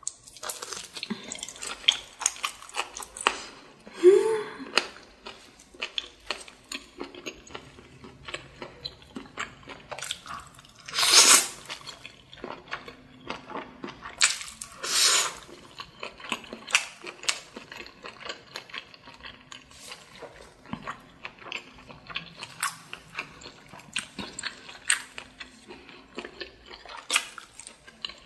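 Close-miked eating of octopus and flat glass noodles: steady wet chewing and mouth smacks, with two loud noodle slurps about 11 and 15 seconds in.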